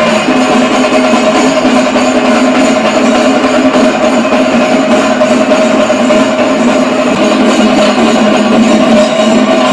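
Music with a steady held drone.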